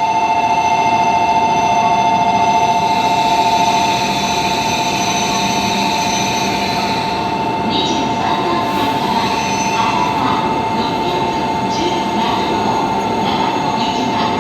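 Shinkansen platform departure bell ringing steadily as a pair of close, quivering tones, signalling that the train is about to leave. A voice, likely a platform announcement, is heard faintly in the second half.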